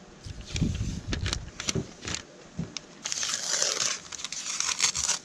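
Brown protective paper being peeled off a black mounting plate, crinkling and tearing for about two seconds in the second half. Before that come scattered clicks and knocks from handling the plate.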